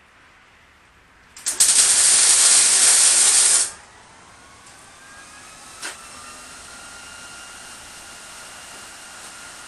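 MIG welder running a short weld bead: a loud steady hiss of about two seconds that starts and stops abruptly. A much fainter steady background noise follows.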